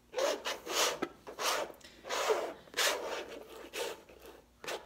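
Palette knife spreading acrylic gloss gel across a canvas in short, repeated scraping strokes, about eight of them, laying a sealing coat over a charcoal drawing.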